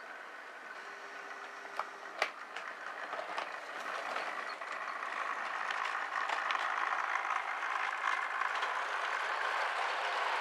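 Model HST train in Virgin livery running along model railway track: a steady whirr and rattle of motor and wheels on the rails that grows louder as the train passes close. Two sharp clicks sound about two seconds in.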